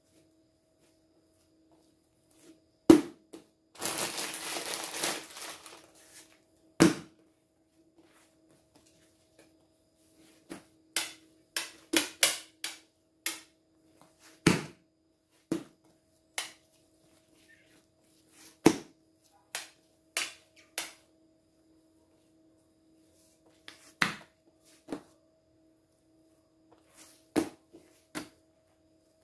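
Scattered thumps and taps of soft bread dough being handled, lifted and set down on a tabletop, with a brief crinkling rustle about four seconds in. A faint steady hum runs underneath.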